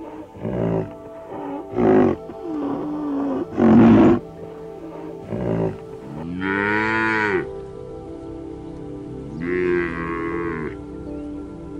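Cattle mooing: two long moos that rise and fall in pitch, about six and nine and a half seconds in. Before them comes a run of short, loud calls, the loudest about two and four seconds in.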